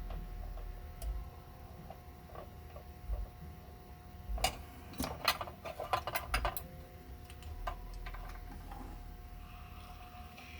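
Small metal tool and parts clicking and scraping against each other on the oil drum loader's gear mechanism as a thrust washer is loosened and adjusted, with a quick cluster of sharp clicks a little before halfway. A faint steady hum runs underneath.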